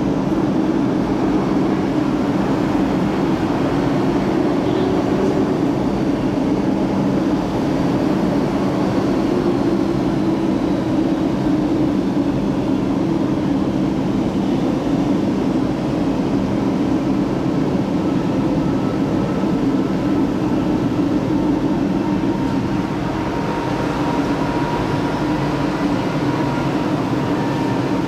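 MTR M-Train electric multiple unit moving slowly along an underground station platform: a steady rumble of wheels on rail with a low hum, and a faint higher tone coming in near the end.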